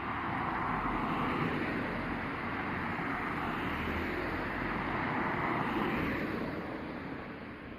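Electric passenger train rolling past on the rails, a steady rush of wheel and running noise that fades away near the end.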